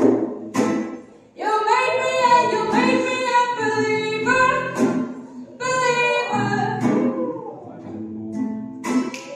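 A woman singing an improvised song live and accompanying herself on guitar, in long sung phrases with brief breaks between them.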